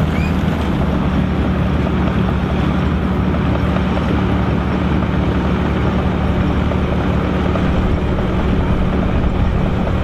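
Volvo BM ST257 combine harvester running steadily while threshing barley: an even engine drone mixed with the noise of its threshing works.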